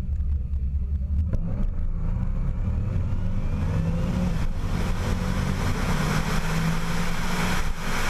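Supercharged 6-litre V8 of a 2008 Holden VE Commodore Clubsport running hard, with a whine rising in pitch from about two seconds in as the car accelerates. It cuts out briefly near the end.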